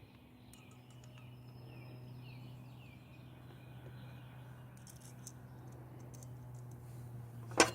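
Faint bird chirps, a run of short falling notes, over a steady low hum, with one sharp click near the end.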